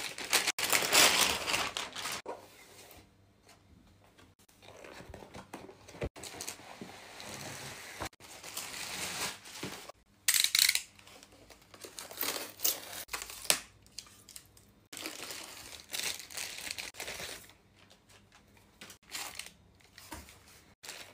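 Plastic packaging crinkling and tearing as a box is unboxed and a plastic-wrapped item is pulled from its foam insert. It comes in irregular spells with short silent pauses between them.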